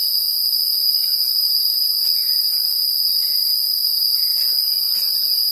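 Forest insects buzzing in a dense, unbroken chorus: a steady, loud, high-pitched drone with a finer hiss above it.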